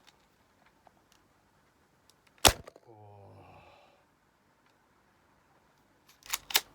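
A Tokyo Marui Glock 17 10+ airsoft pistol firing a single shot about two and a half seconds in, a sharp crack. Near the end come two quick clicks.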